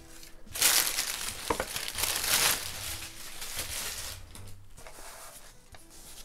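Tissue paper and crinkle-cut paper packing filler rustling and crumpling as they are pulled away from a gift box. The sound is loudest for about two seconds starting half a second in, then settles into softer, intermittent rustling.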